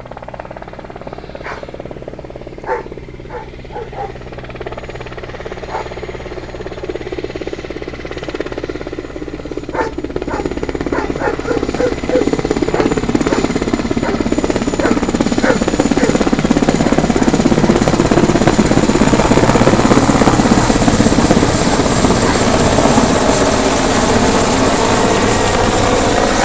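A Mil Mi-8 twin-turbine helicopter approaching to land, with the fast chop of its rotor growing steadily louder over about twenty seconds and then holding loud. A few short sharp clicks sound in the first ten seconds.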